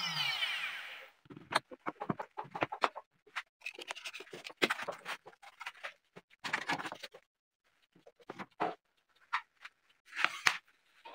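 Trim router winding down after being switched off, its whine falling in pitch and dying out within about a second. Then scattered light knocks, clicks and scrapes of wood being handled.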